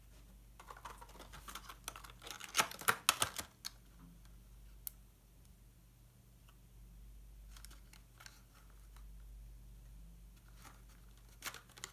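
Light clicks, taps and rustling of paper craft supplies being handled on a desk: a quick cluster of taps, loudest about three seconds in, then a few scattered clicks later on.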